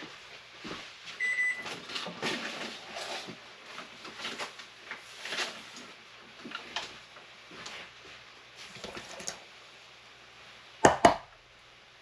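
A microwave oven beeps once, a short high tone about a second in, marking the end of melting the butter. Scattered handling noises follow, and near the end there are two loud sharp knocks.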